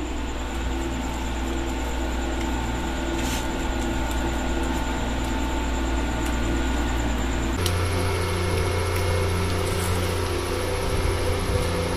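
A steady machine hum with several fixed tones over a low drone, which shifts abruptly to a different set of tones about seven and a half seconds in.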